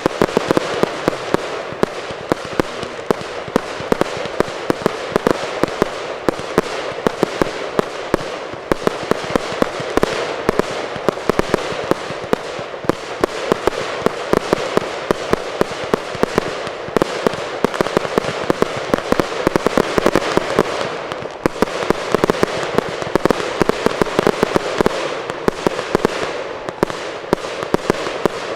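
Fireworks barrage: rapid firework bangs, several a second, over a continuous crackling haze of bursts, with a brief lull about two-thirds of the way through.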